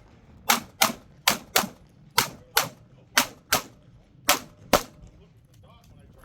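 9mm Glock 45 pistol fired in quick pairs: five double taps, the two shots of each pair about a third of a second apart and the pairs about a second apart, stopping a little before the end.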